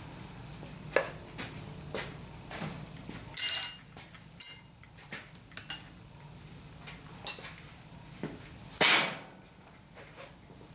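Light metal clinks, knocks and rubbing from handling a freshly forged steel hook and its beeswax finish. There are two sharp ringing clinks about three and a half and four and a half seconds in, and a longer rub near the end.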